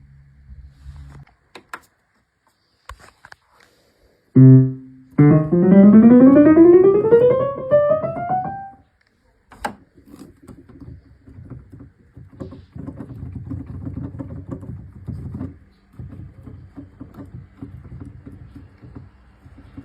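Yamaha P45 digital piano playing a low note, then a fast scale run rising up the keyboard. After that come several seconds of soft, irregular knocks and clacks from the keys' action as keys are pressed again and again.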